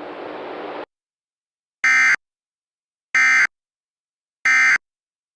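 Three short identical bursts of EAS digital data tones (SAME), about a second and a third apart. They are the end-of-message signal closing the thunderstorm warning broadcast, and come after a brief steady radio hiss that cuts off.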